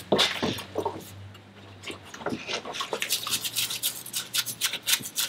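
Brush scrubbing the mud- and salt-crusted water jackets of an aluminium outboard cylinder head soaked in Salt Away solution. The strokes are sparse at first, then quick and steady from about halfway through.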